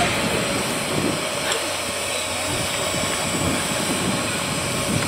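JNR C11 steam tank locomotive C11 207 standing with steam hissing steadily from it.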